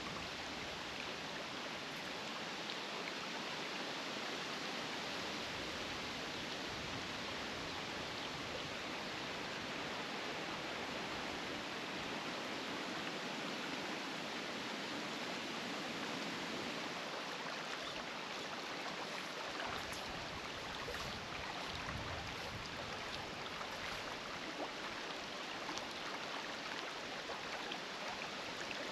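Creek water running over a rocky riffle: a steady, even rushing.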